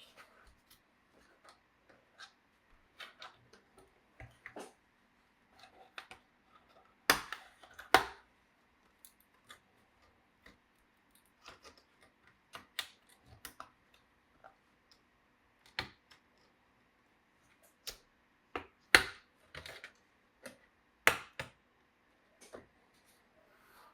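Scattered small plastic clicks and taps from hands and tools working on a laptop's case, with four louder sharp snaps in two pairs.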